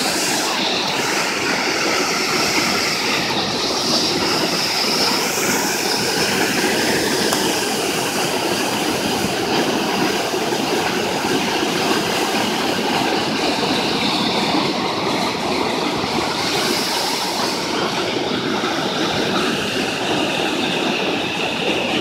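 Mountain waterfall rushing steadily as it plunges down a narrow rock gorge: a continuous, loud hiss of falling water.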